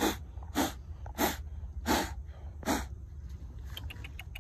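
A man blowing hard, short puffs of air onto a wild honeycomb to drive the bees off it: five forceful blows about two-thirds of a second apart, then a few faint clicks near the end.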